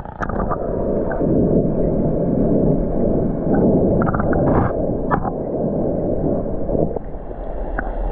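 Muffled underwater rumble and sloshing from a camera held under shallow seawater, with a few small clicks.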